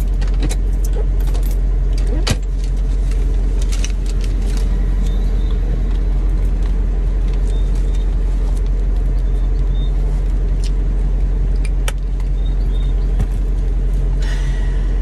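Steady low rumble of a car's engine heard from inside the cabin, with a few light clicks and knocks of things being handled.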